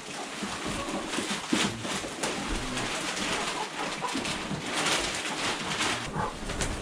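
Wood shavings pouring out of a large bag onto a coop floor, a continuous rustling hiss, with Isa Brown laying hens clucking softly around it.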